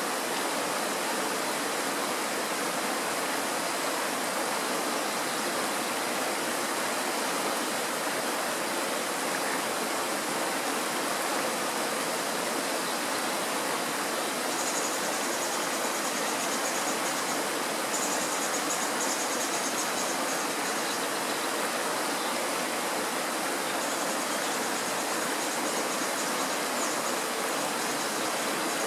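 Mountain stream rushing and splashing over stones and a small riffle, a steady even rush of water.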